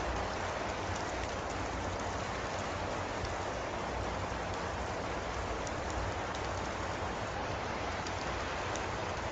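Steady rain falling, an even hiss with a low rumble beneath it and a few faint ticks.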